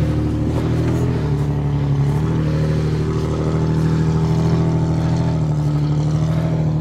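Off-road 4x4's engine running at fairly steady revs, its pitch dipping and rising slightly.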